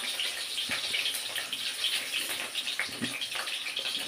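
Food sizzling steadily in hot oil in an iron kadhai, with a few sharp crackles and pops.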